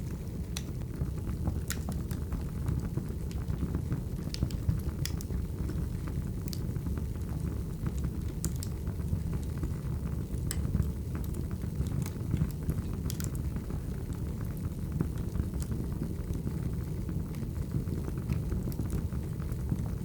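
Wood fire crackling: a steady low rumble of burning logs with irregular sharp pops and snaps scattered through it.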